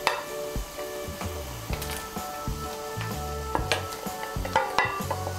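Fried katla fish pieces going into a bubbling fish-curry gravy in a kadai, the gravy sizzling, with several sharp clinks as the pieces are put in, over background music.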